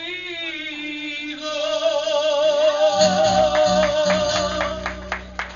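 A male singer holds a long final note with vibrato over band accompaniment as the song ends; about halfway through the band comes in under him with a low sustained chord and percussion hits.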